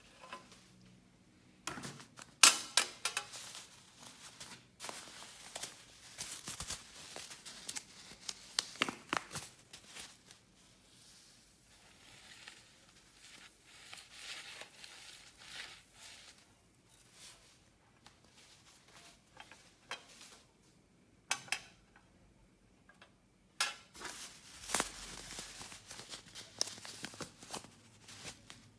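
Irregular clicks, taps and crinkly rustles from handling containers and utensils while slime ingredients are mixed, coming in bursts with short quiet gaps.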